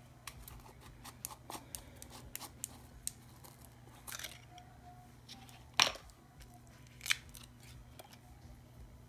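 Scattered light clicks and taps of long acrylic nail tips against a plastic jar of gold glitter as it is handled, with a sharper click about six seconds in and another about seven seconds in.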